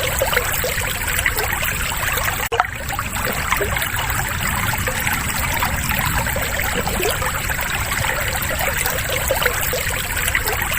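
Steady sound of running water with many small trickling splashes, broken for an instant about two and a half seconds in.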